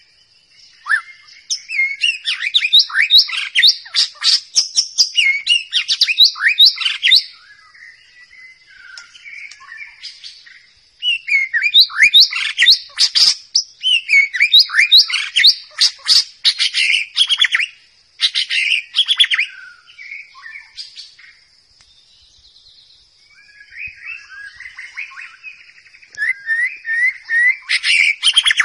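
White-rumped shama singing: fast runs of sliding whistled notes in three loud bouts a few seconds apart, with softer notes in between, over a steady high-pitched hiss.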